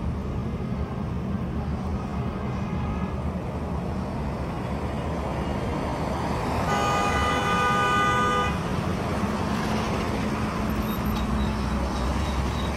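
Road traffic on a wet road, with one long, steady vehicle horn blast lasting about two seconds, a little past the middle.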